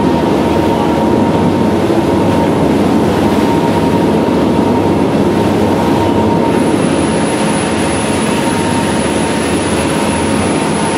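Bladerunner 51 boat running underway: a loud, steady rumble of engines and rushing water with a constant high tone through it.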